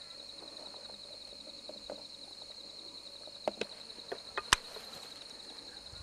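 Insects trilling steadily with a fast, even pulse. A few sharp clicks come between about three and a half and four and a half seconds in, the last one the loudest sound.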